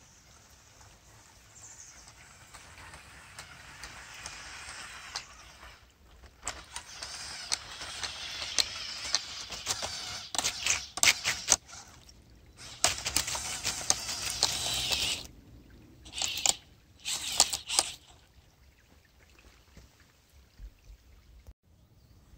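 LEGO Technic RC tracked vehicle crawling through a shallow muddy puddle, its tracks churning and splashing the water, with sharp clicks scattered through it. The splashing builds to its loudest in the middle stretch, then comes in a few short bursts before dying away.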